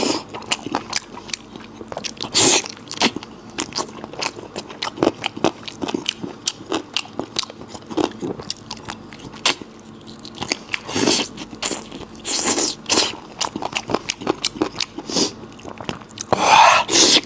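A person chewing and biting spicy offal close to the microphone: a steady run of short wet mouth clicks, with a few longer, louder bites about two and a half, eleven and twelve and a half seconds in and again near the end.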